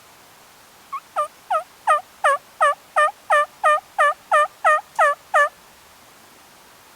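Turkey yelping: a run of about fourteen evenly spaced yelps, roughly three a second, starting softly and then loud and steady.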